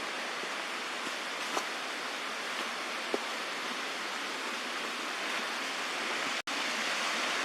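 Creek water running over small rocky waterfalls: a steady rush of water. It cuts out for an instant near the end and comes back slightly louder.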